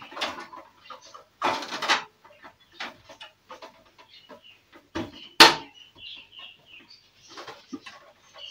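Irregular clicks, rattles and rustles of computer parts and packaging being handled, with one sharp knock about five seconds in.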